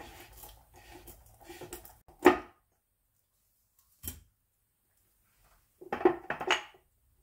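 Screw adjuster being wound out of a Ford M86 diff housing with a homemade tool on a ratchet: a run of light metallic clicks, then one sharp metal clunk. After a pause come a single click and a short cluster of metal knocks and clinks near the end.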